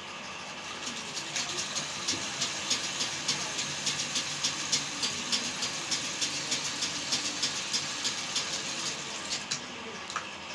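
Industrial straight-stitch sewing machine running and stitching fabric: a steady whir with regular sharp clicking, about three clicks a second. It starts about a second in and stops near the end.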